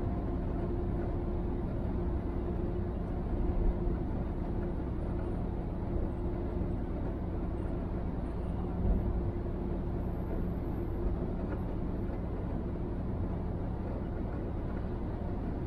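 Steady drone of a semi-trailer truck's engine and tyres heard from inside the cab while cruising at constant speed, with two brief bumps about 4 and 9 seconds in.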